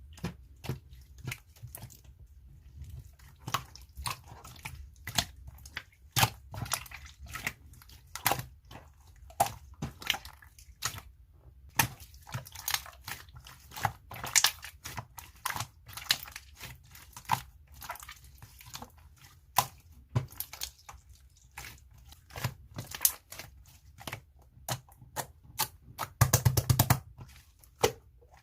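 Slime being squished and pressed by hand, giving irregular sticky clicks and pops, with a denser run of crackling near the end.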